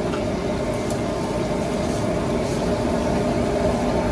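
A steady mechanical hum with faint steady tones running through it.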